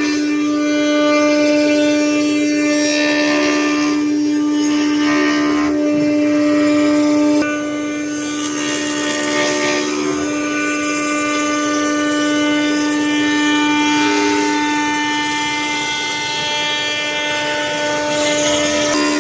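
CNC router spindle running with a steady high whine while its bit carves a block of wood, the hiss of the cut swelling and fading as the tool moves.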